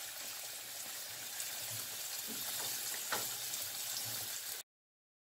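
Chicken gizzard and potato stew simmering in a frying pan on a gas stove: a steady hiss with a couple of small pops, cutting off suddenly about four and a half seconds in.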